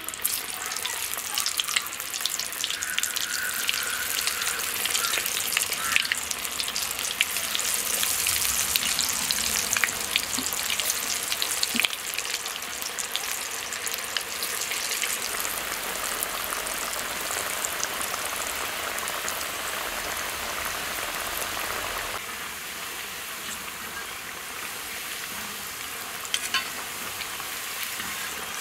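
Boiled elephant foot yam sticks deep-frying in moderately hot oil in a kadai: a dense, steady sizzle full of small crackles. It is louder in the first part while pieces are being dropped in, and eases a little after about 22 seconds.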